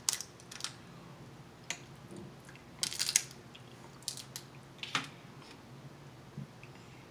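Cooked crab shell being cracked, bitten and picked apart by hand, heard as scattered sharp cracks and snaps, with a quick cluster about three seconds in.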